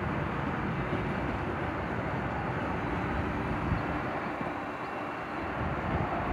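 Steady low rumble and hiss of outdoor city noise with wind on the microphone, and a single short knock about halfway through.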